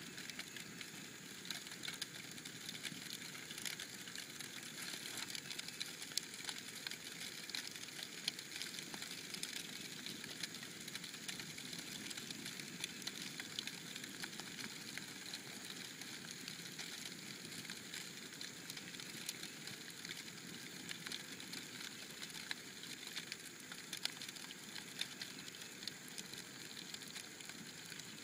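Burning cardboard box crackling, with irregular sharp crackles and pops over a steady hiss.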